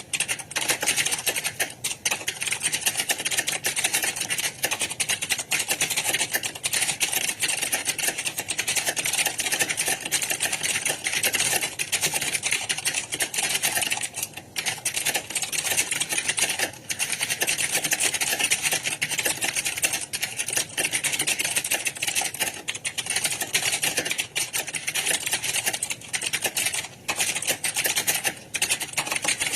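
Fast, nearly continuous typing on a computer keyboard, a rapid rattle of key clicks broken by a few short pauses.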